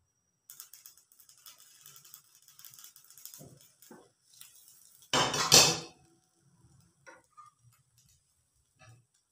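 Glass pan lid with a steel knob lifted off a frying pan and set down on a metal wire stand, a loud clatter of glass and metal about five seconds in, with a few lighter clinks and knocks before and after.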